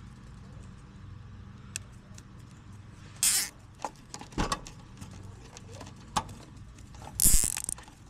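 A bundle of wires being handled and bent inside a heat pump's sheet-metal control box: scratchy rustling and light clicks, with a louder scrape about three seconds in and the loudest one near the end. A low steady hum runs underneath.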